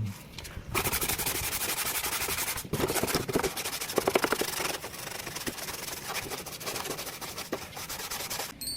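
Rapid back-and-forth scrubbing with a brush, a dense rasping noise, on parts of a window air conditioner being cleaned of mould. It starts under a second in.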